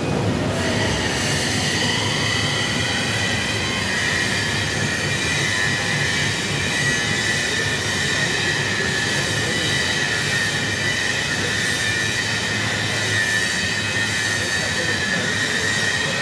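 A steel girth flange being machined: the cutting tool squeals steadily on the metal, a high whine with overtones above it that rises slightly over the first few seconds, over the rumble of the machine tool.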